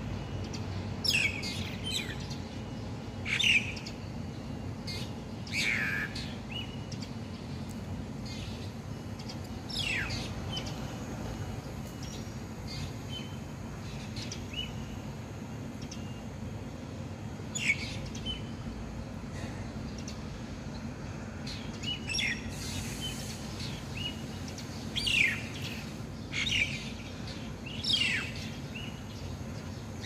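A starling calling repeatedly: sharp, whistled notes that slide quickly downward, about ten of them a few seconds apart, some in quick pairs. A steady low rumble runs underneath.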